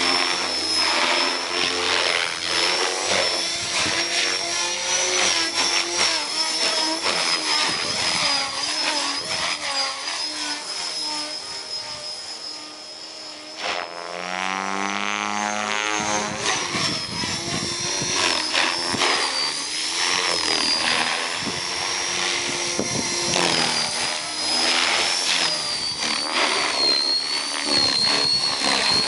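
Align T-Rex 470LM electric RC helicopter flying 3D aerobatics: a high motor-and-gear whine that wavers in pitch as the load changes, over the chop of the rotor blades. The sound drops away for a moment a little before halfway through, then comes back.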